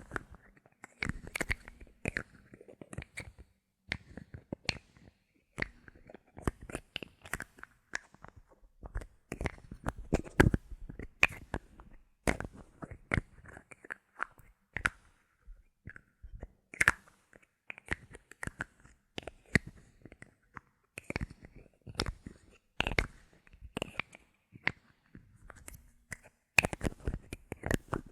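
Close-miked bottle caps being handled, giving a dense, irregular run of small clicks, taps and crackles with short pauses between clusters.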